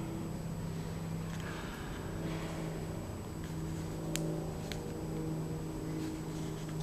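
A steady low hum, with two sharp ticks about four seconds in, half a second apart, in an echoey concrete bunker corridor. The ticks match the metal sound the explorer hears, which he thinks might be water dripping on metal.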